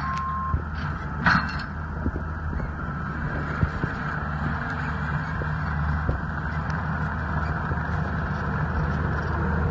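The diesel engine of a CAT tracked skid steer running steadily under work. Its reversing alarm gives one last beep right at the start, and there is a short squeal about a second in.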